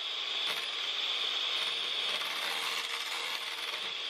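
Electric hand mixer running steadily, its two beaters whipping cream in a glass bowl; a steady motor whir with a high whine.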